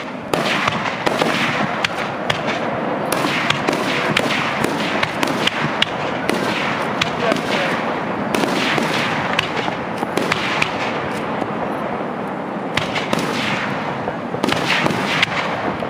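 Fireworks display: a dense, continuous run of bursting shells and crackling, with sharp reports following one another closely.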